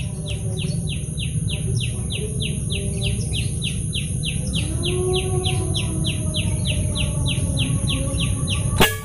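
Birds calling: one bird repeats a short falling chirp steadily, about three or four times a second, over a steady high insect hiss and a low rumble. A single sharp click comes near the end.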